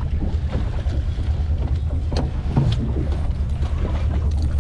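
Small fishing boat's engine running steadily at low trolling speed, a steady low drone, with wind on the microphone and a few short knocks.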